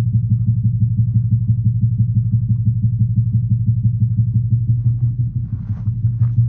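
Low, fast drum beat played through a loudspeaker, pulsing evenly about five times a second, heard from between the trilithon stones of the circle.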